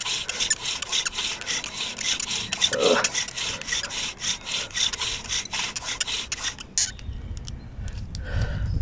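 Bow drill at work: a dry wooden spindle, spun by a sawing bow, grinds in a notched wooden hearth board in a fast, even rhythm of friction strokes, then stops about seven seconds in. The dry wood is grinding out hot dust that gathers into an ember.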